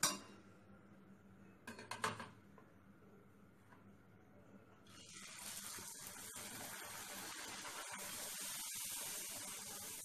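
Sharp metal clinks of a steel spatula against a steel strainer plate at the start and again about two seconds in, then about five seconds in a steady sizzle begins as a raw puri fries in hot oil in a steel kadhai.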